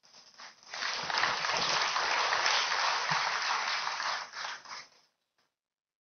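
Audience applauding. The clapping swells about a second in, holds steady, then thins to a few last claps and stops near the end.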